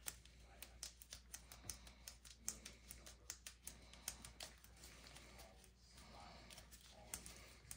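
Faint, irregular small clicks and crinkles from nitrile-gloved hands handling a small part; they come thickest in the first half and again near the end.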